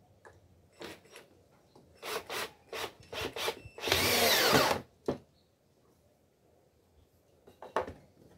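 Cordless drill boring into a wooden piece: several short bursts, then a loud continuous run of under a second about four seconds in, the motor pitch shifting as the bit bites. A few light knocks near the end.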